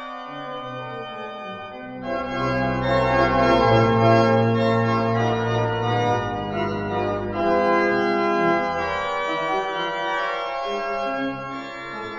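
Organ music: slow, sustained chords, with deep bass notes coming in about two seconds in and the sound growing fuller.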